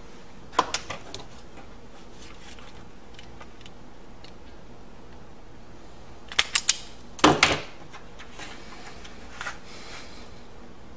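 Sharp clicks and clacks of a hand-held self-adjusting wire stripper being picked up, squeezed on a wire end and set down on a workbench. A few clicks come about half a second in, and a louder quick cluster follows about six to seven and a half seconds in.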